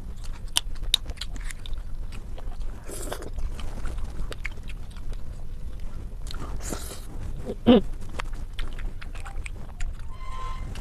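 A person eating close to the microphone: biting and chewing with many small sharp clicks, two short hissing sounds, and a brief squeak about three-quarters of the way through, which is the loudest moment.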